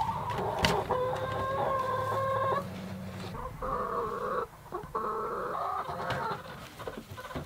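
A chicken in the coop calling: three long, drawn-out calls in a row, the first the longest, then a few fainter shorter sounds near the end.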